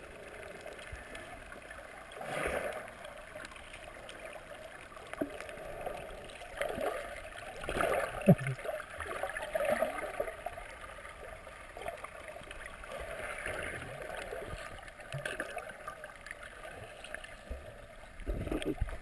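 Muffled underwater sound from a camera submerged in its waterproof housing: water rushing and gurgling around it, swelling and fading several times as it moves, with bubbles and splashing from swimmers near the surface.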